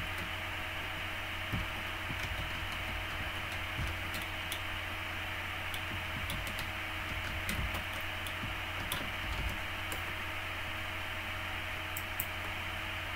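Computer keyboard keystrokes, a few faint, irregular clicks as a short title is typed, over a steady hiss and low electrical hum.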